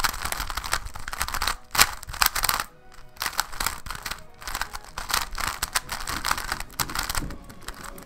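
GAN 356 X magnetic 3x3 speedcube being turned quickly by hand: fast runs of soft plastic clicking and rattling as the layers turn and snap into place, broken by a few brief pauses. The turning is quiet.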